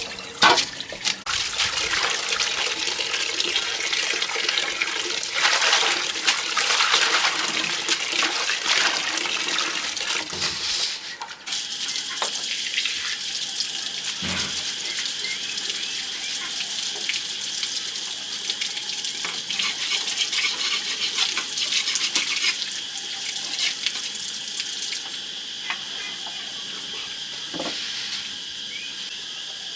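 Water splashing and running with uneven surges for the first ten seconds or so. It then settles to a lower, steadier wash, over which a steady high insect drone, typical of crickets, sounds from about twelve seconds in.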